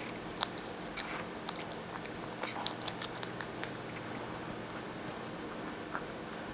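Boston terrier puppy chewing a nylon Nylabone: irregular sharp clicks of teeth gnawing the hard nylon, thickest in the first few seconds and sparser after.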